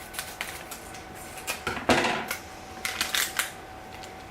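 Hands opening a small cardboard blind box and its packaging: scattered clicks and taps, with a louder crinkling rustle about two seconds in and another short burst of clicks a second later.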